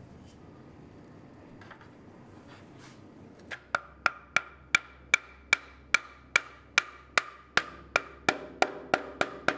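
Regular taps on a wooden block held against the edge of an oak kumiko grid, knocking the interlocking strips into their half-lap joints. Quiet handling at first, then about seventeen sharp knocks at roughly two and a half a second, each with a short pitched ring, coming a little quicker near the end.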